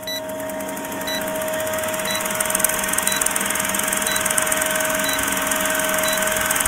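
Film-countdown sound effect: an old film projector running with a fast clatter and steady hum, and a short high beep once a second.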